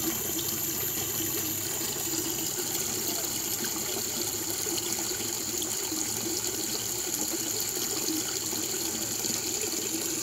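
Stream water pouring out of a concrete culvert pipe and splashing into a shallow pool, a steady rushing splash. A steady high-pitched tone runs above it.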